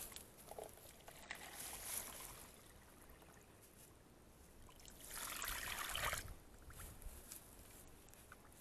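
Water poured from a plastic jug onto dry sugar in an iron kadai, in two pours, the second and louder about five seconds in.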